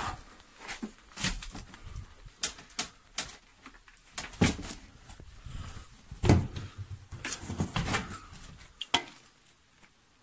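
Irregular knocks, bumps and scrapes as someone clambers in through a wooden window frame, with the camera knocking against the frame and sill. The noises stop about nine seconds in.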